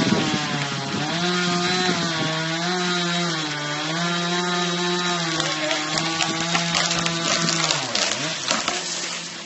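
Chainsaw running at high revs while cutting into a tree. Its engine note dips and recovers a couple of times as the chain loads up in the wood, then falls away near the end.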